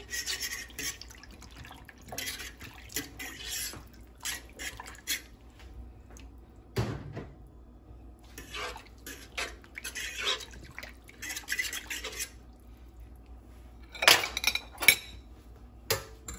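A metal fork stirring through a creamy sauce in a frying pan: wet swishing and scraping strokes, with clinks of metal against the pan. The clinks are loudest a couple of seconds before the end.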